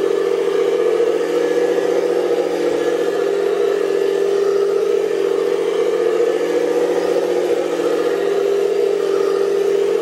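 Remote-control model Panther tank driving and turning on a hard floor, giving a steady, even-pitched mechanical drone.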